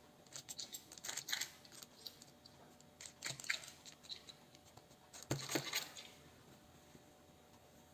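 Faint scattered rustling and light scratching as hands press bun dough balls flat on a parchment-paper-lined baking tray, in a few short clusters.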